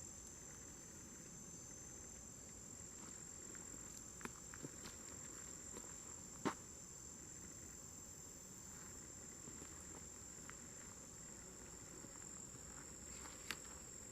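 Faint, steady high-pitched chirring of a late-summer chorus of crickets, with a few soft clicks, the most distinct about six and a half seconds in.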